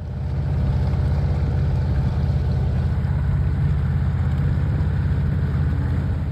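Small boat's motor running steadily, a loud, even low drone with a fine regular pulse.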